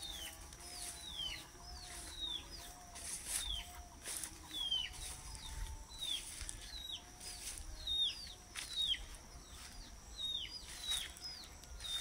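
Domestic chicks peeping: a steady run of short peeps, each sliding down in pitch, about one or two a second.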